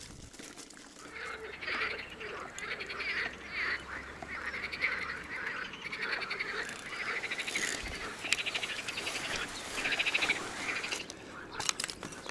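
Frogs croaking at the water's edge, many rapid pulsed calls overlapping, starting about a second in and continuing to near the end.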